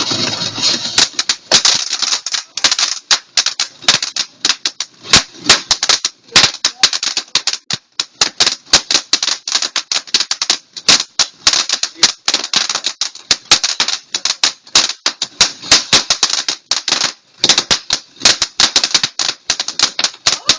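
Fireworks crackling and popping, a dense, irregular rattle of sharp cracks with a couple of brief lulls.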